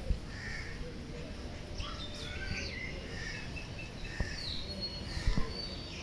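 Several birds calling around the aviary: short chirps, whistles and caws scattered throughout, over a low background rumble. A few dull knocks stand out, the loudest about five seconds in.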